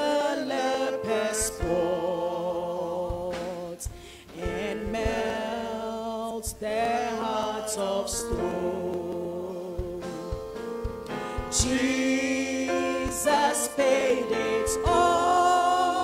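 Church congregation and worship team singing a slow hymn together.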